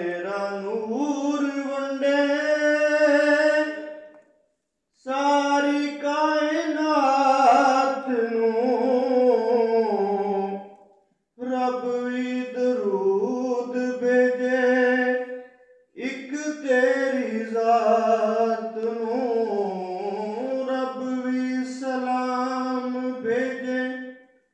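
A man chanting a naat, an Urdu devotional poem in praise of the Prophet, solo and unaccompanied into a microphone. He sings four long melodic phrases with held, wavering notes, each followed by a short pause for breath.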